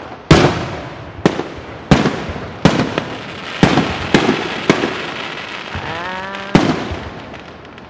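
Aerial firework shells bursting overhead: about eight sharp booms, irregularly spaced over the eight seconds, each fading off in a short echoing tail.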